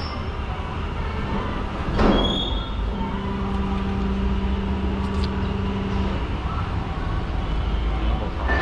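Heavy truck's diesel engine running at a steady idle, with a single knock about two seconds in and a steady hum joining from about three to six seconds.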